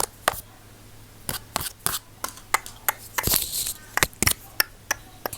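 Close-miked ASMR trigger sounds: irregular sharp clicks and taps, several a second, with a short pause about half a second in and a brief breathy hiss a little past halfway.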